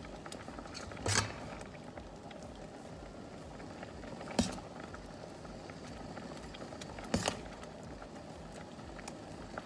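Pot of mung bean soup bubbling at a steady boil, with a ladle knocking against the stainless steel pot about three times as soup is scooped out.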